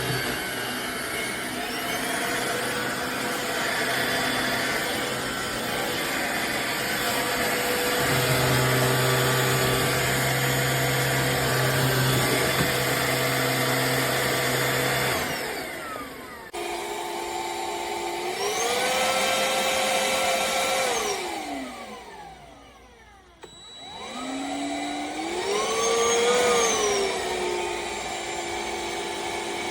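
Black+Decker POWERSERIES+ 20V MAX cordless stick vacuum running with a steady motor whine. Partway through the sound changes abruptly, and then the motor pitch twice rises, holds and falls, nearly dying away in between.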